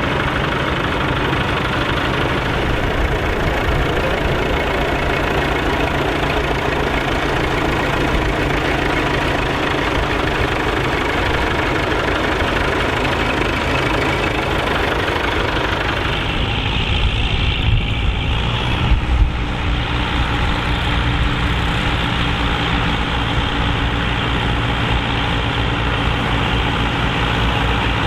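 Tractor diesel engines running steadily. About two-thirds of the way through the sound shifts briefly, with a few sharp knocks, then settles into a steadier, idle-like note.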